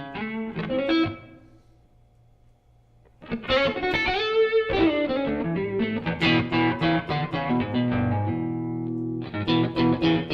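Electric guitar (a Stratocaster) played through the Surprise Sound Lab Flex15 single-ended amp's second channel into a 2x12 cab: blues licks with mild overdrive that is not abrasive and keeps the notes clear. The playing fades into a short lull about two seconds in, resumes, and holds a note near the end before more licks.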